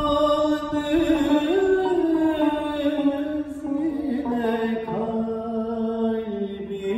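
A man singing a Turkish classical song in makam Suzinak, with long held notes that slide between pitches, accompanied by a plucked tanbur.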